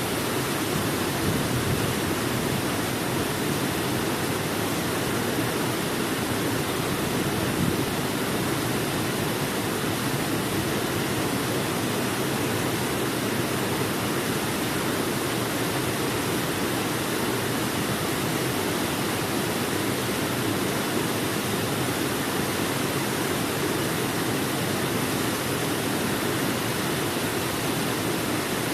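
Waterfall: falling water making a steady, unbroken rush with no separate splashes or changes.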